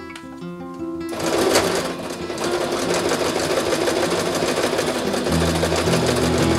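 Singer Brilliance electric sewing machine starting about a second in and then running steadily at speed, stitching through denim, over background music.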